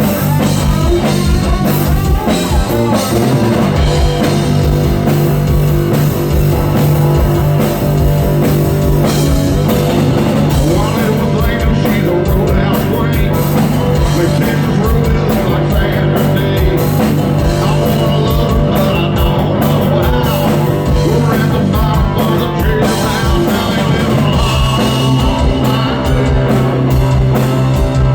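Rock band playing live: guitar and drum kit, with singing.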